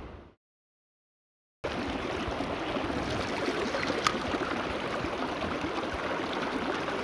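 Fast shallow river running over rocks, a steady rush of water that starts after a brief silence about a second and a half in. A single sharp click about four seconds in.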